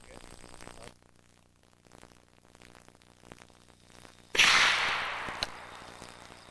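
A single black-powder gunshot about four seconds in: one sharp, loud report that fades away over about a second and a half, with a small click shortly after.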